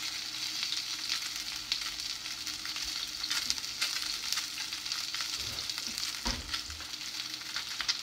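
Salmon fillets searing in a hot oiled frying pan: a steady sizzling hiss with scattered crackles and pops of spitting oil.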